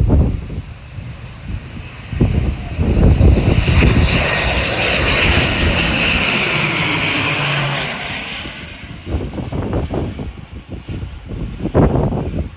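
Airliner engines passing by: a high whine that slowly falls in pitch as the engine noise swells to its loudest around the middle and then fades, with heavy wind buffeting the microphone throughout.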